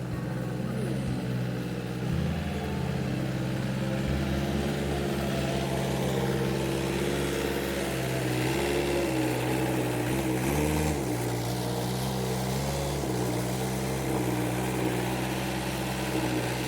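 An engine runs steadily, its speed shifting up and down a few times, most around the middle.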